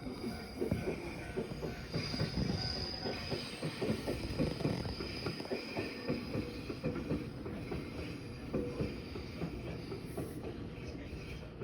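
A train running past, its wheels clattering over rail joints, with a thin high wheel squeal for a second or so about two seconds in.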